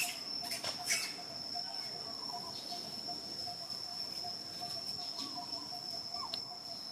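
Insects calling: one steady high-pitched whine with a quick, pulsing trill beneath it at about five pulses a second. A few short rising chirps sound over it, and a couple of sharp clicks come in the first second.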